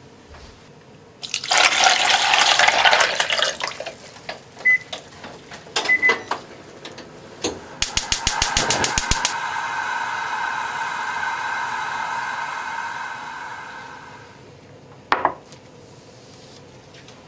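Water poured from a tap into a stainless steel pot of clams, a loud rush lasting about two seconds. Then a few clicks, a quick run of about a dozen clicks, and a steady hiss that fades out after several seconds, with a single knock near the end.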